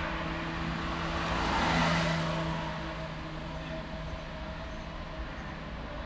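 Car driving on a city road: steady engine hum under tyre and road noise, which swells about two seconds in and then eases.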